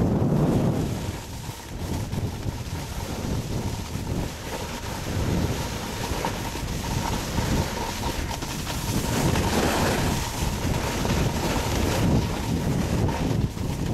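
Wind buffeting the microphone of a camera carried down a ski slope at riding speed: a steady rushing noise with low rumbling gusts that swell and fade.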